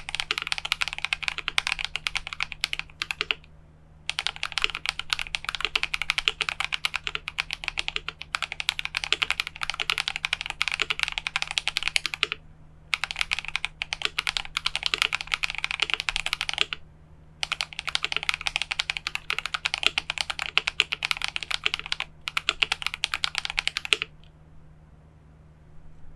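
Fast typing on a KBD67 Lite R2 mechanical keyboard with lubed Invyr Holy Panda tactile switches, a polycarbonate plate, foam dampening and GMK keycaps. The typing comes in long bursts with short pauses and stops about two seconds before the end, leaving a faint low hum.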